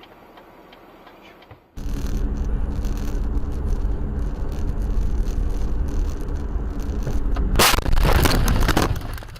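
Car engine running steadily with road noise. About six seconds after it starts, a loud harsh noise cuts across everything for a little over a second.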